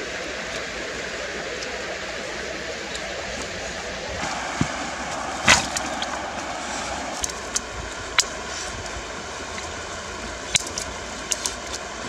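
Dry wooden sticks and branches clattering and cracking as they are dropped and laid onto a pile on the ground: a scatter of sharp knocks and snaps, the loudest about five and a half seconds in, over a steady rushing background.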